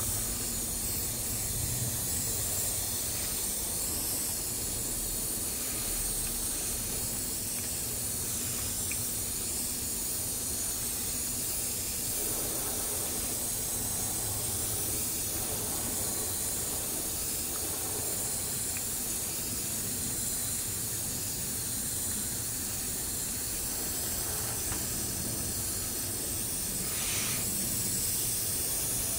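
Gravity-feed airbrush spraying paint: a steady high hiss of compressed air.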